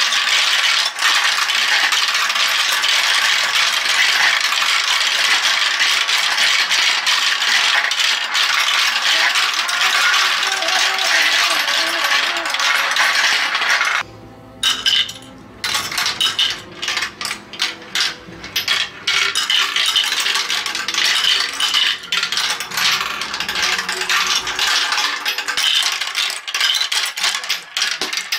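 Marbles clicking and rattling as they roll down the plastic zigzag chutes of a Galt marble run, a dense continuous clatter. About halfway through it stops briefly, then comes back as scattered clicks that build into a steady clatter again.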